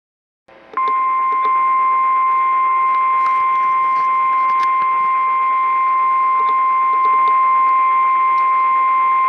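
NOAA Weather Radio warning alarm tone: one loud, steady, high beep near 1050 Hz that starts about a second in and holds unbroken, over a radio receiver's hiss with faint crackles. It is the signal that a warning message is about to be read.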